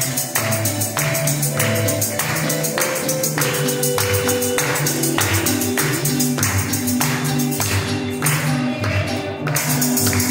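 Live Latin-style worship music from a small band of keyboard, acoustic guitar and upright double bass, over a steady percussive rhythm of about two strokes a second. The high shimmer of the percussion drops out for about a second and a half near the end.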